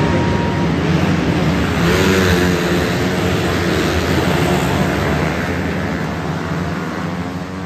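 A pack of small winged sprint cars racing past on a dirt oval inside an arena building, several engines running together and shifting in pitch as they go by. The sound is loudest about two seconds in and fades as the pack moves away toward the end.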